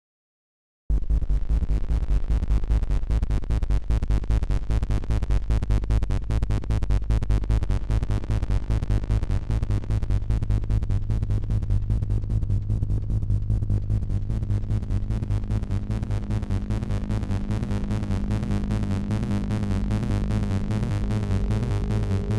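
Synthesized electronic music from an Amiga demo intro. It starts suddenly about a second in, with a fast, even pulsing beat over heavy bass.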